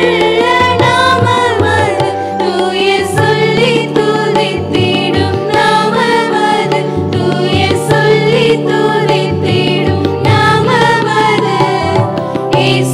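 A small group of women singing a Christian hymn together into microphones, over accompaniment that holds low sustained chords which change a few times.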